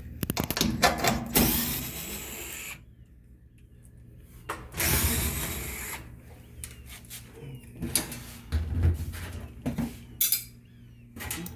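Power driver spinning screws out of a washer's rear panel in two short runs, with clicks and knocks of handling around them.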